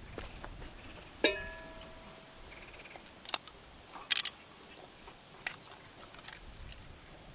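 A metal cooking pot clanks once about a second in, with a short ringing tone that fades quickly. A few light clicks and taps follow.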